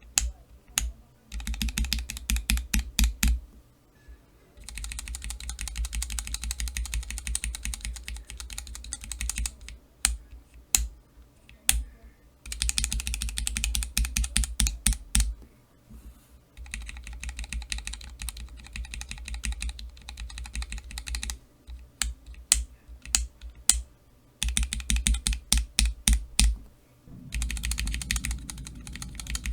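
Cherry MX Black linear mechanical key switches being pressed over and over. Stretches of rapid, dense clicking alternate with single sharp clicks spaced out between them.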